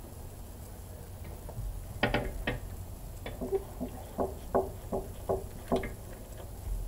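A series of sharp metallic clicks and clinks, about two to three a second, from about two seconds in until near the end: a wrench working on the diesel injection pump's steel fuel lines.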